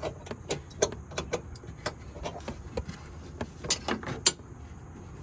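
Ratchet wrench working a headlight mounting bolt in a cramped space: scattered metallic clicks and taps in short strokes, with a louder cluster of clicks about four seconds in.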